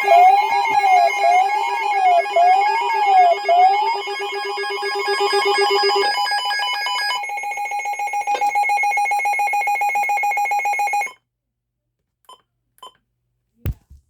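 Weather radio alert tones: a warbling tone sliding up and down about once a second over a steady lower tone, then a steady buzzy tone that cuts off suddenly about eleven seconds in. A few faint clicks and a short thump follow near the end.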